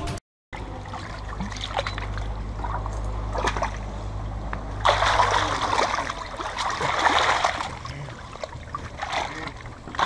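Shallow river water splashing and trickling at a muddy bank, louder and more turbulent from about five seconds in, over a low steady hum. There is a brief dropout to silence right at the start.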